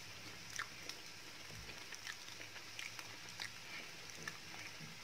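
Faint chewing: a person tasting a mouthful of cooked pasta, with small scattered mouth clicks over a low steady hum.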